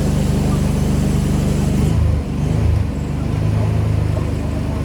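Pressure washer engine running steadily under a high hiss; about two seconds in the hiss stops and the engine note drops and settles lower.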